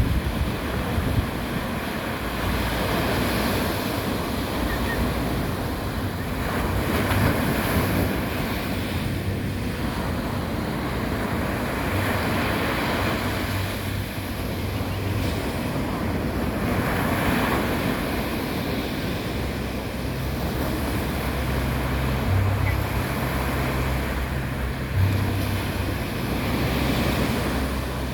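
Sea waves washing onto a sandy beach in a steady surf that swells and eases every few seconds, with wind rumbling on the microphone.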